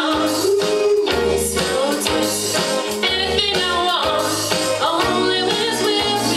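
Pop song with singing over a bass line and a steady beat.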